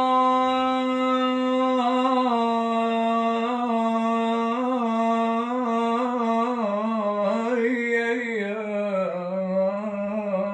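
A man's solo unaccompanied voice drawing out a long wordless note in 'ataba folk singing: held steady at first, then from about two seconds in wavering in small melismatic turns around the same pitch.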